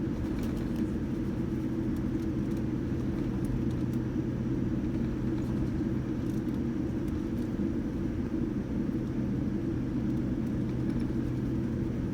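Steady low rumble inside a Boeing 787-9's passenger cabin on the ground before takeoff, engines and cabin air running, with a constant low hum.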